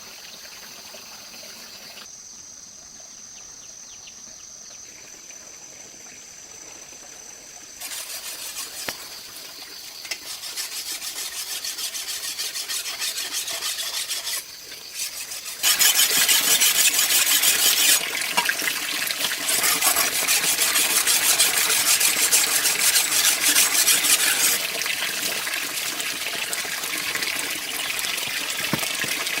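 Water running and splashing, in a few short stretches that change abruptly, louder from about halfway through.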